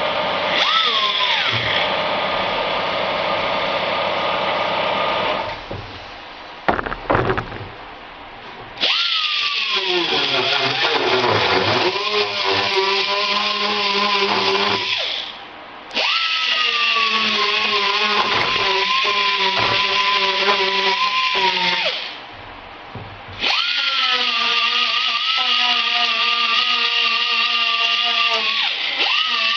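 Small right-angle grinder with a sandpaper disc sanding fiberglass. It runs with a steady whine in four long runs, each stop broken by a short pause before it runs again.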